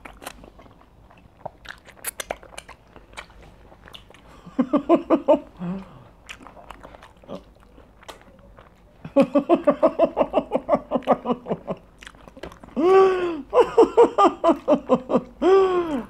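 Close-miked eating sounds as meat is bitten and chewed by hand from a plate of soup: scattered wet clicks and smacks of lips and chewing. From about four seconds in, rhythmic pulsed vocal sounds from the eaters come in over the chewing and grow louder after the middle.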